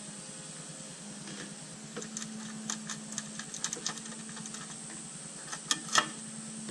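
Small clicks and ticks of pliers and a plastic Di2 E-tube cable plug being handled and pushed into a front derailleur's port, with a sharper click about six seconds in, over a steady background hum.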